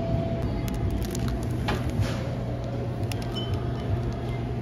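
Shop room tone: a steady low hum with faint steady tones, broken by a few short clicks and light crinkles in the first two seconds.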